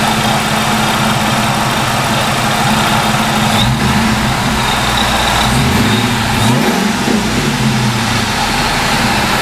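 2002 Ford F-150 Lightning's supercharged 5.4-litre V8 running, its supercharger freshly refilled with oil. The engine speed shifts and rises briefly between about four and eight seconds in, then settles back.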